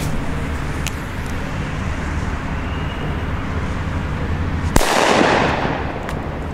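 Funke C-Böller firecracker going off with one sharp, loud bang about five seconds in, its echo dying away over the next second. A steady low rumble runs underneath.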